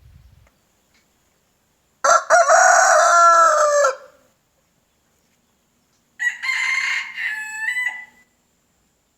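Rooster crowing twice: a loud full crow about two seconds in, then a second, higher-pitched and quieter crow about six seconds in.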